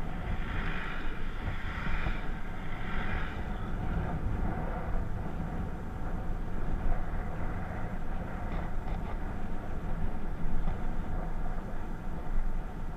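Aprilia SR 125 scooter riding along, its single-cylinder engine running steadily under heavy wind noise rumbling on the action camera's microphone.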